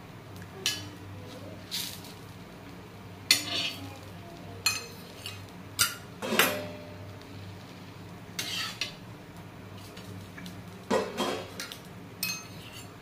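A metal spoon scraping and clinking against a tawa (flat griddle) as a sandwich is turned and pressed while it toasts. There are about ten short, irregularly spaced scrapes and clinks.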